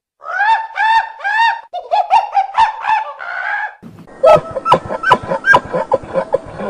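A run of short, high, arched animal calls, about three a second, followed about four seconds in by a faster, busier series of calls.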